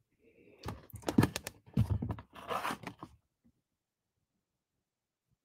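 Small metal spoon scraping and clattering in a plastic tub of embossing powder as a stamped card is handled over it: a couple of seconds of scraping, rustling and light knocks that stop about three seconds in.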